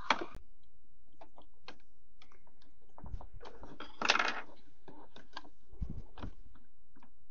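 Light clicks and rattles of a handheld instrument's plastic case and circuit board being handled on a workbench, with a longer scrape about four seconds in and a low bump about six seconds in.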